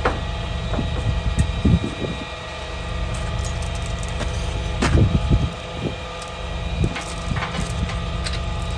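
Tow truck engine idling steadily, with a few knocks and clatters as burnt metal debris by the front wheel is handled; the loudest clatter comes about five seconds in.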